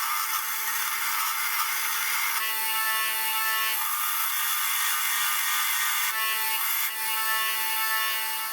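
Electric power tool running steadily, a motor whine under a rough hiss of material being cut or ground. The hiss changes every second or two, and the sound stops at the very end.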